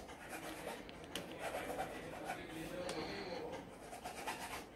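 Rubbing and scratchy handling noise with scattered small clicks, from network cables and plastic RJ45 connectors being turned over in the hand.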